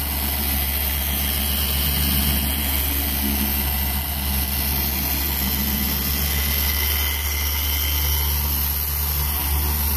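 Harbor Freight Chicago Electric dual-action polisher running steadily at speed setting 4, its foam pad spreading polish over the paint with no pressure.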